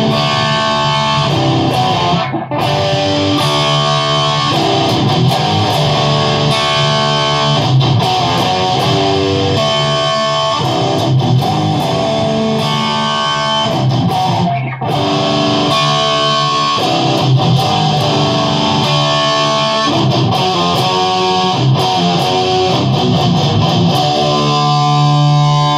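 Electric guitar with humbucker pickups playing fast, dense riffs through an amplifier, with two short breaks, about two and a half seconds in and again about fifteen seconds in.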